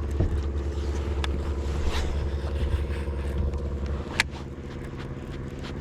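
A boat's motor running with a steady hum. About four seconds in, a click comes and the hum drops to a lower, quieter level.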